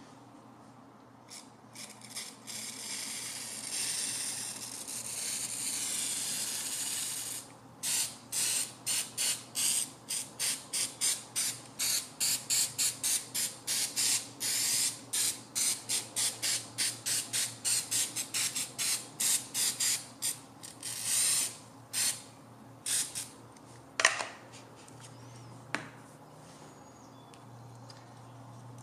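Aerosol can of Citristrip paint stripper spraying: one continuous hiss of a few seconds, then a long run of short spray bursts at about two a second. A single sharp knock near the end.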